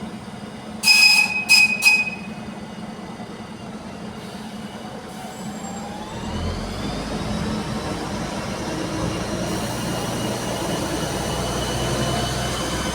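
ZSSK class 813 diesel railcar giving three short, high horn toots. A few seconds later it moves off, its engine and drive rising in a whine over a low rumble that grows steadily louder.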